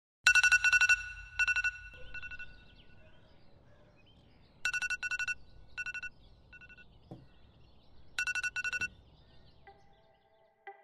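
Smartphone alarm going off: a bright beeping tone in quick bursts, repeating in three groups that each tail off. Near the end a soft synth music tone starts.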